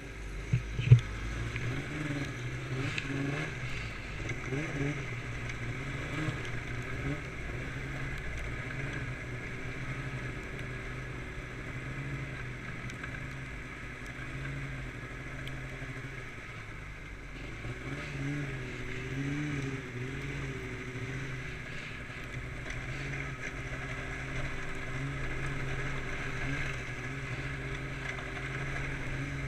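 Snowmobile engine running at low speed, its pitch rising and falling with the throttle. A single sharp knock about a second in.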